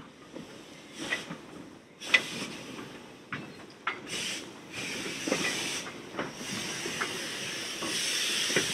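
L&Y 'Pug' 0-4-0 saddle tank steam locomotive working slowly with a rake of wagons: irregular soft exhaust beats and knocks, the sharpest about two seconds in, over steam hiss that grows louder in the second half.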